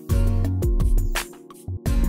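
Instrumental background music with held notes and sharp percussive hits.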